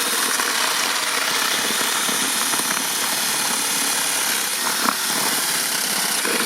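A handheld power tool running steadily without a pause, working into wood.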